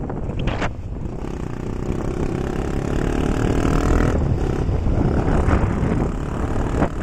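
Motorcycle engine running on the move, its note standing out from about two to four seconds in, with heavy wind rumbling on the microphone.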